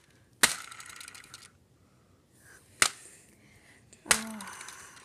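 Plastic BeanBoozled game spinner being flicked: sharp clicks, two of them followed by a fast rattle of ratchet clicks that slows and dies away within about a second.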